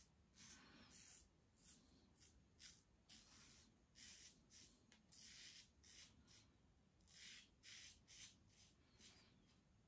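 A double-edge safety razor (King C Gillette with a BIC Astor blade) scraping stubble off through thin lather in many short strokes, about two or three a second. Each stroke is a faint, bright rasp, shaving across the grain on the second pass.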